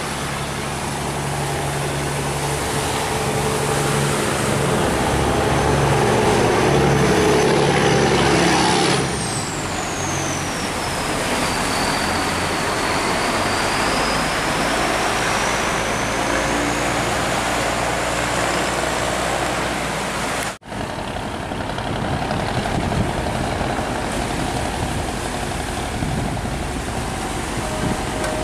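Diesel engine of a steel cargo barge running at speed, with the rush of its bow wave and wake. The engine is loudest about eight seconds in, then drops away. A high whine sweeps down in pitch and back up in the middle, and the sound cuts out for an instant about twenty seconds in before the engine and water noise carry on.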